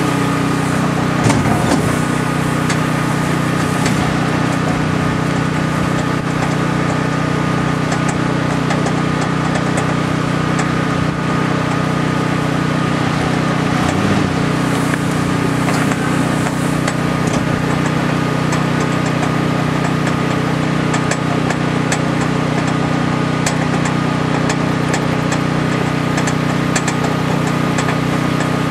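Pickup truck engine idling steadily, with scattered crackling ticks from a red-hot steel anvil being quenched in river water to harden it.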